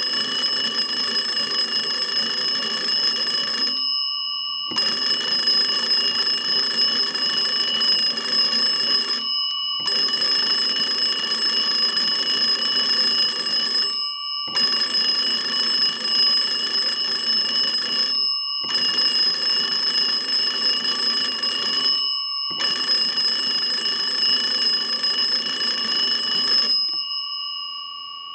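Kellogg wooden wall crank telephone's original twin gong bells ringing continuously, driven by its hand-cranked magneto during a magneto check. The ringing comes in spells of about four seconds separated by short pauses, then rings out and fades near the end.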